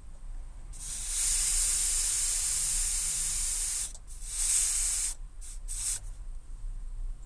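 Compressed air hissing out of the Schrader valve on a DURO pneumatic air-suspension panel as its pin is pressed, letting pressure out of an air spring. There is one long hiss of about three seconds, then a shorter one, then three brief spurts.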